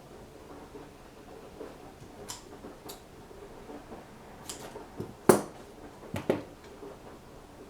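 Small clicks and taps from hands working with double-sided sticky tape and laptop parts: a few light clicks, then a sharper tap about five seconds in and two more just after six seconds.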